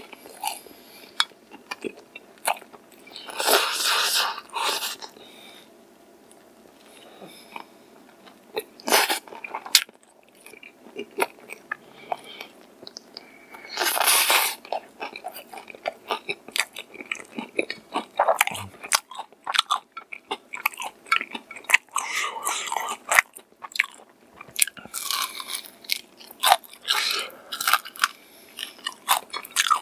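Close-miked biting, crunching and chewing of crispy-coated fried chicken, with dense crackles and several louder bursts of crunching.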